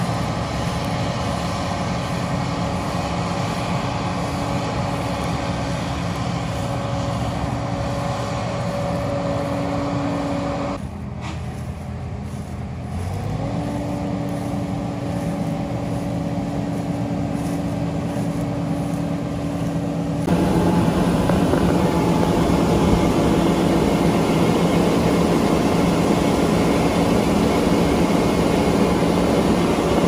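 John Deere 9500 combine harvester running steadily while cutting wheat, a heavy engine hum with fixed tones. The sound drops off sharply about eleven seconds in and returns, then jumps louder and fuller about twenty seconds in.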